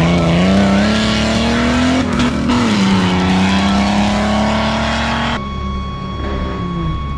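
An off-road 4x4's engine revving hard as it drives up a loose, muddy track, its pitch rising and falling with the throttle. About five seconds in, the sound changes abruptly to a steadier engine note with a thin high tone.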